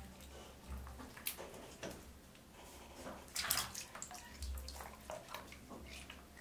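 Water splashing and dripping in a plastic tub as a baby monkey moves about and handles a mango in it: irregular small splashes, with a louder splash about three and a half seconds in.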